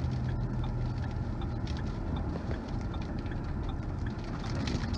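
Strong storm wind buffeting a vehicle, a steady low rumble, with raindrops ticking irregularly on the windshield and roof, heard from inside the cabin.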